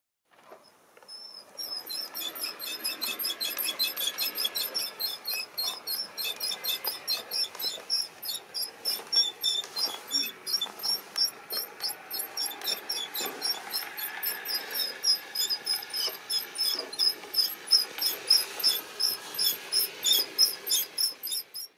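LGB garden-railway train running on the outdoor track, its wheels clicking over the rails in a fast, even rhythm, with a faint hum of the running gear underneath.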